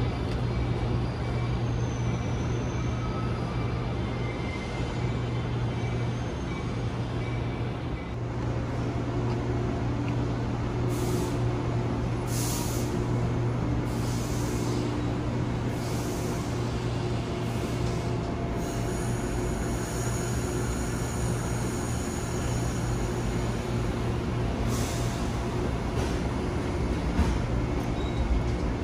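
Train running, with a steady low hum and a few short hisses of air partway through.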